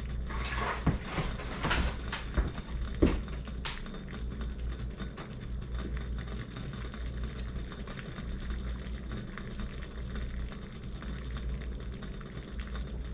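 Water at a rolling boil in a stainless steel pot: a steady low bubbling rumble. A few light clicks and knocks come in the first few seconds.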